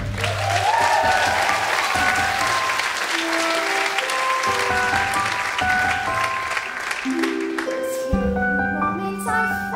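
Theatre audience applauding at the end of a musical number, with instrumental music playing underneath. The applause dies away about eight seconds in, as a held low note begins.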